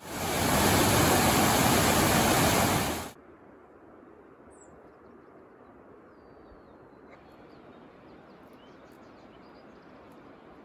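A rocky mountain creek cascading over boulders, a loud steady rush of water that cuts off abruptly about three seconds in. After it, a much quieter outdoor background with a few faint, high chirps and calls.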